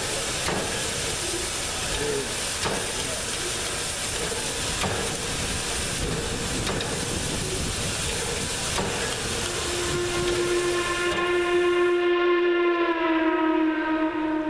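Steam locomotive 1309, a Chesapeake & Ohio 2-6-6-2 Mallet, hissing steam steadily while it stands, with a few faint knocks. About ten seconds in, its steam whistle starts a long blast whose pitch sags slightly and then holds.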